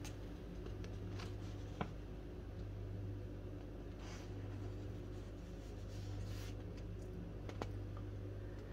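Faint rustling and crinkling of a large printed paper cross-stitch pattern sheet being handled, with a couple of light clicks, over a steady low hum.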